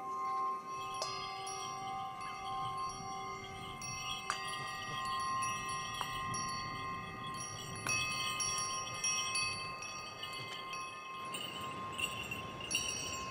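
Chimes ringing: a fresh tone struck every second or two, each one held and overlapping the others into a steady ringing.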